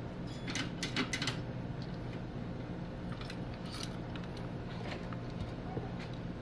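Light clicks and taps of small metal tools working at a circuit board while a capacitor is desoldered, a few in quick succession about half a second in and more around three seconds in, over a steady low hum.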